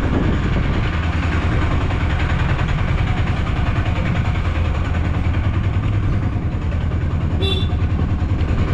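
Engine of a small open-backed goods vehicle running as it drives, heard from its cargo bed: a steady low rumble that pulses rapidly. A short high beep sounds near the end.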